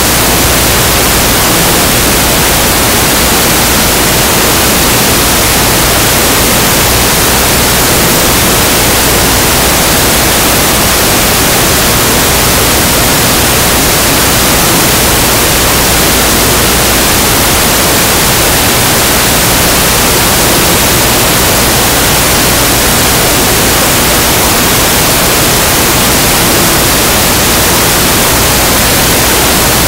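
Loud, steady static hiss with no change through the whole stretch, covering any sound from the game.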